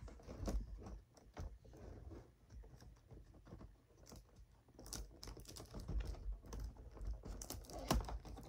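Hands working at a doll's box packaging to get it open: irregular clicks, taps and rustles, growing busier and louder in the last few seconds.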